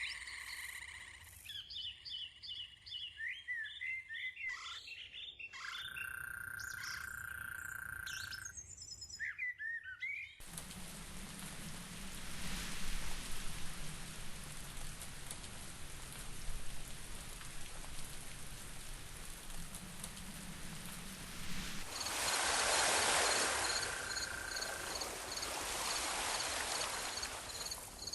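Birds chirping and calling for about the first ten seconds, then an abrupt change to a steady hiss like rain, louder again from about two-thirds of the way through, with rapid, repeated high chirps over it.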